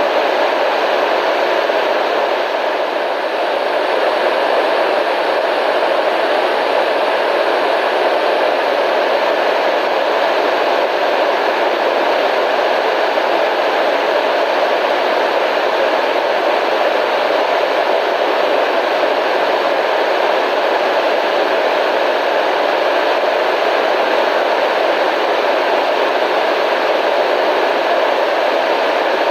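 Constant radio static: a steady, even hiss with no tones in it, fullest in the middle range, dipping slightly about three seconds in.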